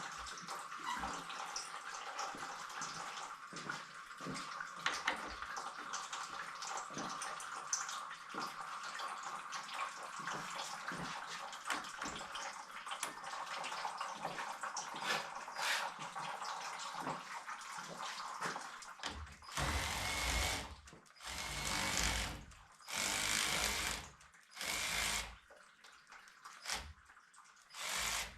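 Engine coolant draining from a 1999 Ford Mustang's radiator into a drain pan, a steady trickling hiss. In the last third, about five loud bursts of noise of a second or so each stand out above it.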